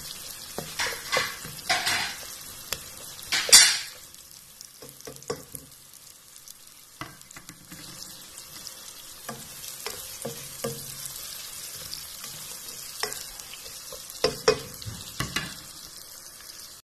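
Chopped onion, garlic and ginger sizzling in hot oil in a non-stick pan while a spatula stirs and scrapes them, sautéing the aromatics. The stirring strokes come in a burst in the first few seconds and again near the end, with a steadier, quieter sizzle between.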